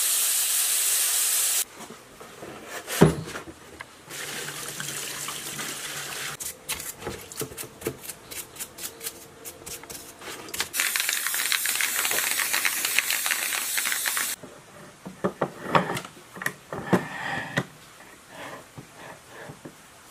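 Sandblasting gun hissing loudly against an old lathe part, cutting off suddenly about two seconds in. Then a knock, water sloshing around parts soaking in a tub, a second stretch of loud hiss, and near the end scattered knocks and clicks of metal lathe parts being handled.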